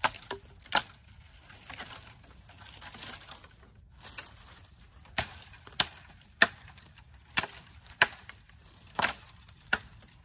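Work Tuff Gear Puzon Wilderness Bowie 7's 7-inch SK85 steel blade chopping side branches off a dead branch. About nine sharp knife strikes on wood: two near the start, then after a few seconds a run of seven at uneven spacing.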